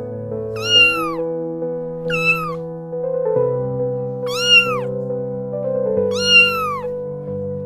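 A cat meowing four times, each call rising then falling in pitch, over background music of slow sustained chords.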